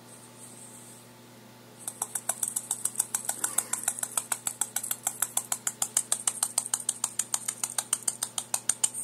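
A rapid, even run of slaps against a tree trunk, several a second, starting about two seconds in and heard played back through a phone's speaker. A fan hums steadily underneath.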